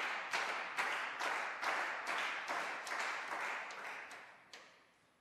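Clapping from a small number of people in the hall, about three claps a second, fading out near the end.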